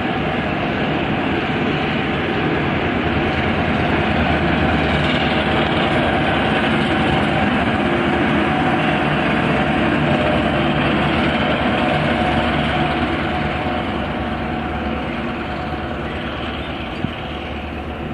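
V/Line push-pull passenger train passing: carriages rolling by on the rails, then the P class diesel-electric locomotive pushing at the rear goes past with its engine running. The sound is loudest mid-way and fades as the train draws away.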